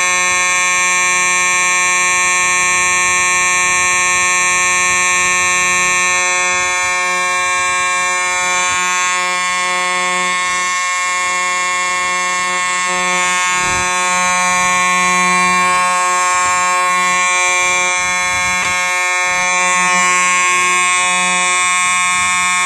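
Simplex 4901-9805 electromechanical fire alarm horn sounding continuously: one loud, steady tone rich in overtones, unbroken and not pulsed.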